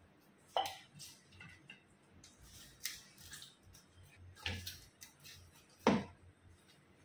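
A hand kneading wheat-flour dough in a stainless steel bowl: irregular soft wet squishing with a few sharper slaps and knocks against the bowl, the loudest near the end.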